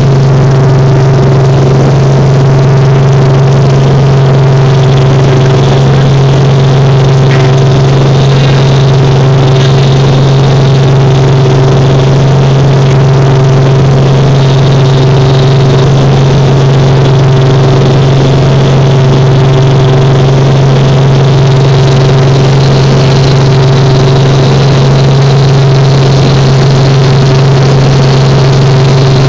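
Helicopter engine and rotor noise heard from inside the cabin during takeoff and climb: a loud, steady drone with a strong low hum.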